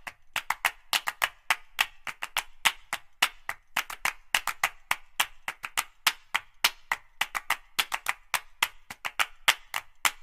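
Rhythmic clapping beat, about four or five sharp claps a second in an uneven, repeating pattern, with no melody.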